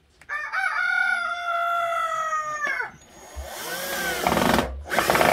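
Electric drill-driver driving screws into a wooden hive box. Its motor runs with a steady whine for about two and a half seconds, sags slightly and stops. A second, rougher run builds up and is loudest near the end.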